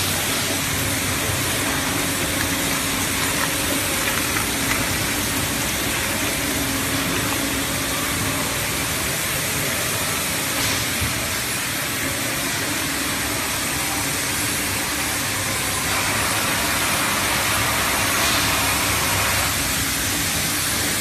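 Automatic liquid bottle filling and labeling line running: a steady machine hum under a broad hiss, with the hiss growing louder for a few seconds near the end.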